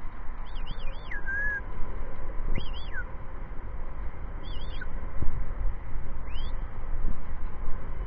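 A bird calling four times, each a short warbling whistle that wavers up and down and then sweeps downward. A steady low rumbling noise runs underneath.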